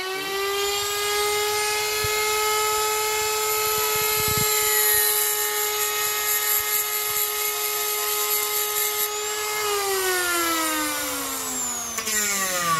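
A die grinder and a Dremel running at a steady high-pitched whine, the Dremel's cutting wheel grinding against the spinning steel burr to cut small teeth into it, so the burr will cut the wood rather than burn it. The grinding hiss fades a little past halfway, and near the end a motor winds down with falling pitch.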